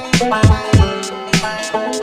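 Background music with a steady drum beat and sustained melodic notes.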